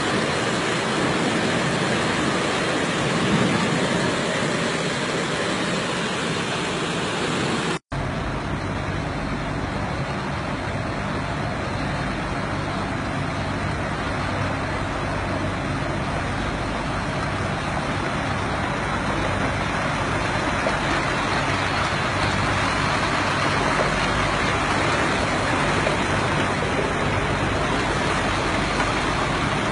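Heavy rain pouring down on a city street. About eight seconds in it cuts off suddenly and gives way to a steady, even rushing noise with a low hum in a flooded metro station.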